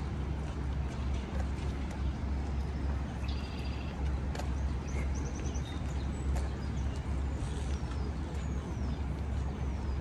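City street traffic: a steady low rumble of passing vehicles, with a few faint high chirps about a third of the way in and several thin falling squeaks near the end.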